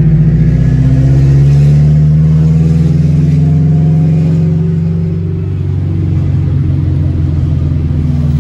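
Tofaş car's four-cylinder engine pulling through a loud aftermarket exhaust, heard from inside the cabin: a deep drone that swells as the throttle opens, eases off about five seconds in, then settles to a steadier cruise.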